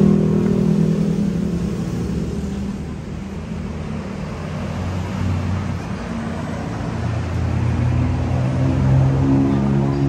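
Road traffic: a large vehicle's engine running with a steady low hum that shifts in pitch, over the general noise of passing cars.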